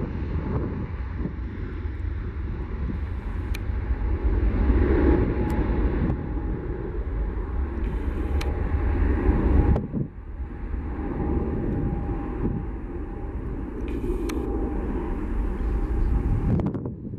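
Boeing 757-200 jet engines running as the airliner lines up and begins its takeoff roll: a deep rumble with a faint steady whine, dipping suddenly about ten seconds in.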